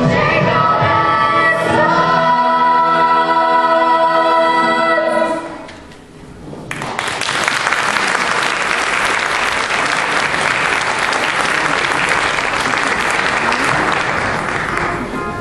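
A chorus of stage-show voices holds a final sung chord for about five seconds and fades out. After a short lull, audience applause starts about seven seconds in and runs on until music starts again near the end.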